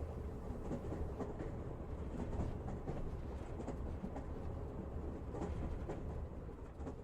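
A steady low rumble with a faint noisy haze and scattered soft clicks.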